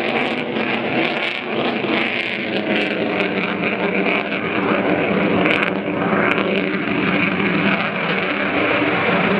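An F-4 Phantom II jet and a P-51 Mustang flying past in formation: a loud, steady mix of jet engine roar and piston engine drone.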